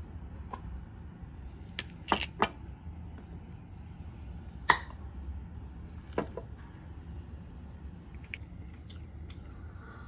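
Tableware being handled on a table: a handful of short, sharp clinks and light knocks, the loudest a little before five seconds in, over a steady low hum.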